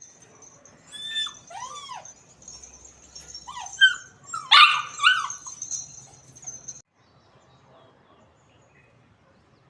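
Small dog giving a handful of short, high-pitched yips and whines, loudest about four to five seconds in; the sound cuts off suddenly a little before seven seconds.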